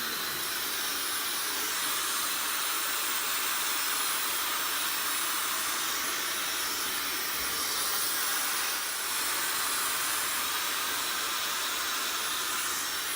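Hair dryer blowing steadily: an even hiss of rushing air with a thin high whine above it.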